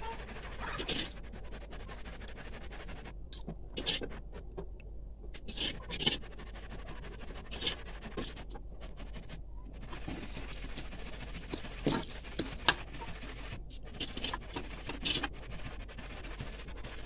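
A metal spatula scraping and knocking against a wok as it stirs browned coconut residue (blondo), which is drying out in the last stage of cooking down coconut milk into oil. The scrapes come irregularly, several a few seconds apart, over a steady low hum.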